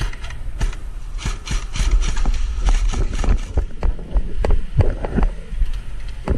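Irregular sharp clicks and knocks, a few a second, over a steady low rumble of handling and wind noise on a body-worn camera.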